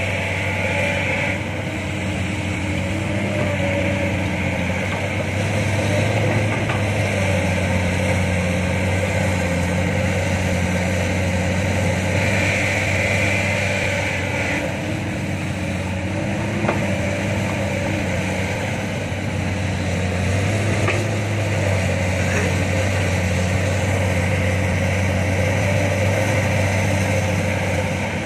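Heavy diesel engine running steadily nearby, a deep even hum that swells and eases slightly, with a few faint clicks.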